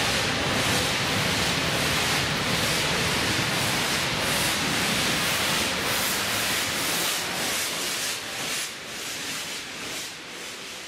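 Steam locomotive 35028 Clan Line, a Merchant Navy class Pacific, pulling away with a loud hiss of steam and a rhythmic pulsing that gradually quickens, fading off from about seven or eight seconds in.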